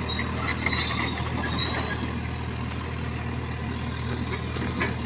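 FINE FM38 mini excavator's diesel engine idling steadily, with a few light clicks and rattles over it.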